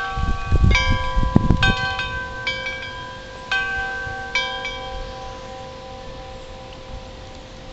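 Wind chimes struck by gusts of wind: several clusters of ringing notes in the first four and a half seconds, then the last notes slowly fade. Wind rumbles on the microphone at the start.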